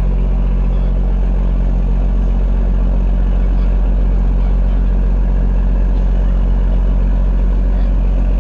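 Boat engine running steadily: a low, even drone that holds level throughout.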